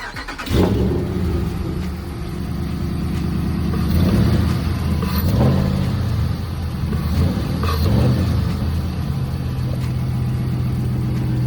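Ram pickup's Hemi V8, breathing through a freshly fitted K&N cold air intake, starting up. It catches with a flare about half a second in and is revved a few times, then settles into a steady idle near the end.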